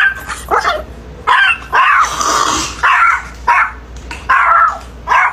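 Dog barking repeatedly, about six short barks with brief gaps between them.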